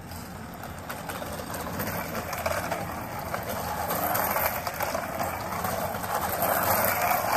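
Homemade electric scooter rolling over brick pavers: a continuous rattling rumble from its small skateboard wheels and front hub-motor wheel going over the paving joints, growing louder toward the end.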